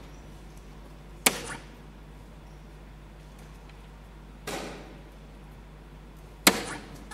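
Soft-tip darts hitting a Phoenix electronic dartboard: a sharp hit about a second in and another near the end, with a softer knock between them, each followed by a brief ring-out.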